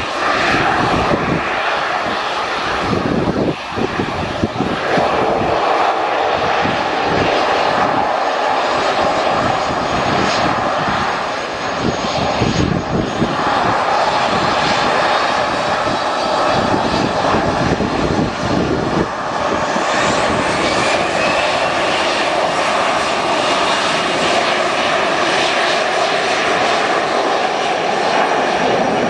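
Airliner engines running loud and steady as the Nam Air jet moves on or over the runway, with a faint whine that rises a little about two-thirds of the way through.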